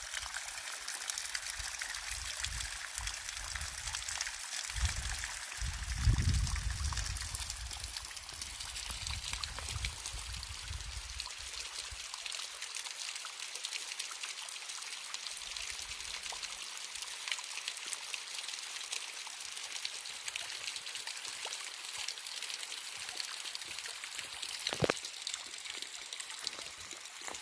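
Spring water trickling and dripping with small splashes, a steady hiss. A low rumble comes and goes in the first ten seconds or so.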